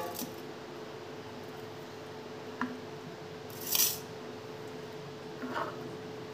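Light knocks and a clink of steel tumblers being handled on a stone countertop, with a brief hiss near the middle, over a steady faint hum.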